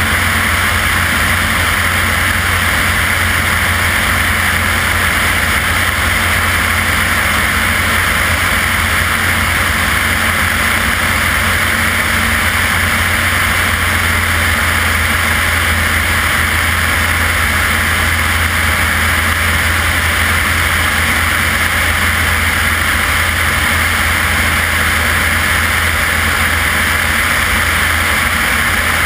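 Propeller aircraft engine running steadily in cruise flight, heard as a constant low drone under heavy wind rush over the outside-mounted camera.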